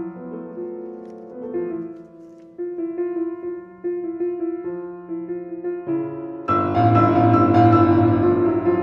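Piano interlude in an art song: quiet held chords that shift every second or so, then about six and a half seconds in a sudden loud, dense passage of many notes.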